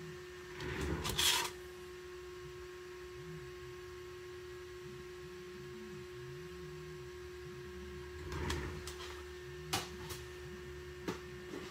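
Textured PEI build plates handled: a short rustling scrape about a second in and another about eight seconds in, then two sharp clicks as they are set down, over a steady hum.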